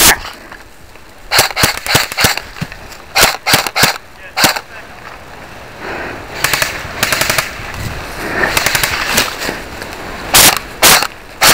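Airsoft guns firing: sharp cracks in short rapid bursts and single shots, coming in clusters every second or so, with a gap in the middle of the stretch.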